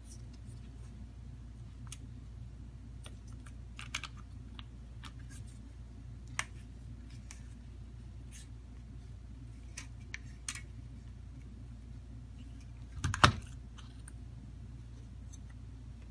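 Small scattered clicks and taps of plastic smartphone parts being handled and pressed together on a repair mat, with one louder snap late on, over a steady low hum.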